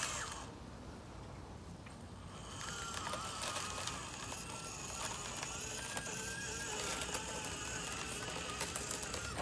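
Axial SCX24 micro RC crawler's small electric motor and gears whining as it climbs a foam rock slope, the pitch rising and falling with the throttle. The whine is faint for the first couple of seconds, then louder.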